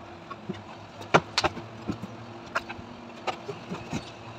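Scattered short clicks and light knocks, the loudest about a second in, over a steady low hum.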